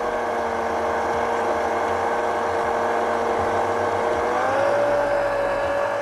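Electric stand mixer motor whining steadily as it starts mixing focaccia dough (flour, yeast water and oil) in a steel bowl. A little over four seconds in, the pitch steps up as the mixer speed is raised.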